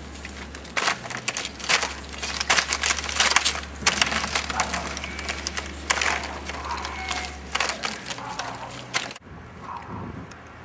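Coiled plastic ground-loop pipe being unrolled and handled close by: an irregular crackle of scrapes and knocks over a steady low hum, breaking off suddenly about nine seconds in.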